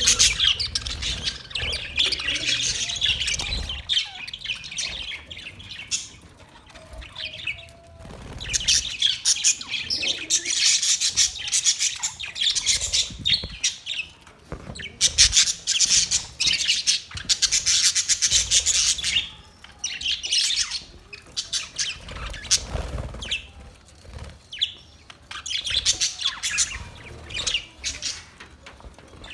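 Parrot chirping in bouts of rapid, high calls, broken by a few short quieter pauses.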